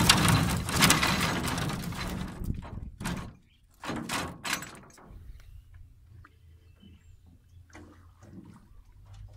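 Dense knocking and clattering against the boat for the first few seconds, then a couple of short thumps about four seconds in, then quiet with a few faint taps.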